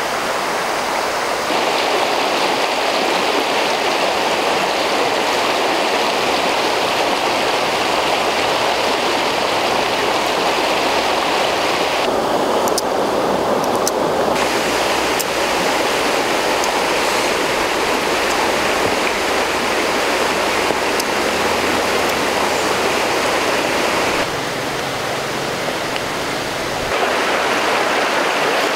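Steady rushing water of a stream, a dense even hiss whose character shifts abruptly a few times.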